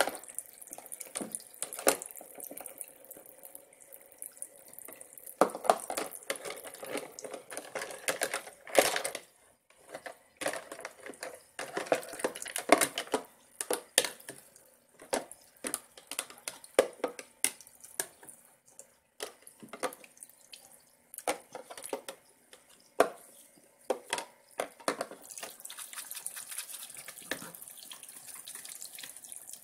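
Water trickling from a toy kitchen sink's faucet while plastic play plates and utensils are rinsed and handled under it, with frequent light knocks and clatters of plastic against plastic.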